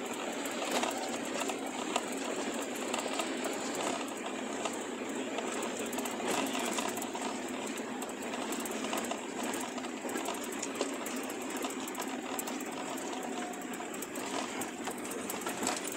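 Inside a 4x4 jeep's cabin: the engine running and the body rattling and clattering steadily, with constant small knocks, as the jeep lurches over a rough rocky track.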